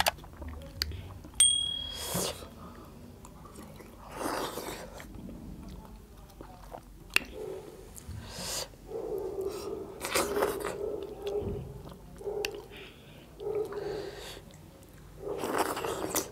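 Two people eating with their hands: chewing, lip-smacking and slurping mouthfuls of millet dhido and soupy chicken curry, in a string of short wet bursts. A brief high ping sounds about a second and a half in.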